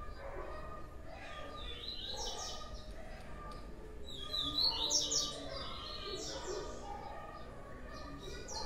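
Blue-black grassquit (tiziu) chirping: bursts of quick, high chirps, loudest about halfway through, with more near the end.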